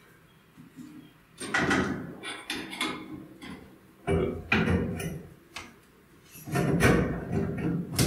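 Copper pipe and fittings being handled and pushed together at a shower valve, knocking and scraping, in three irregular spells of clatter starting about a second and a half in.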